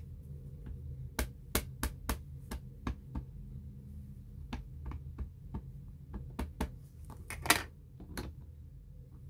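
StazOn ink pad being tapped repeatedly onto a rubber stamp on an acrylic stamping plate: about a dozen sharp, irregular taps, with a louder clatter about seven and a half seconds in as the plate is handled.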